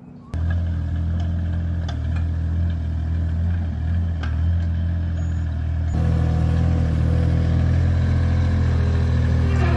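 SANY SY16C mini excavator's diesel engine running steadily. It comes in abruptly just after the start and grows a little louder about six seconds in.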